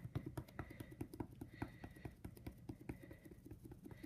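Foam pouncing brush dabbing acrylic paint through a stencil: a fast, even run of faint soft taps, several a second.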